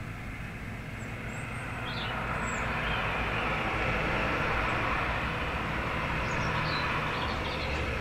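A distant vehicle passing, its rushing noise swelling from about a second in and easing off near the end, over a low steady hum. A few faint, high bird chirps.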